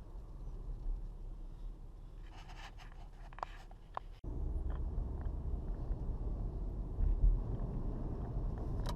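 A low steady rumble, with a few faint clicks and rustles early, that jumps to a louder rumble at an abrupt cut about four seconds in.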